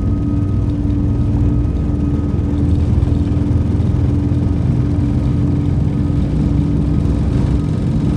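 Airbus A340-600 heard from inside the cabin while moving on the ground: its four Rolls-Royce Trent 500 engines give a steady hum over a dense low rumble.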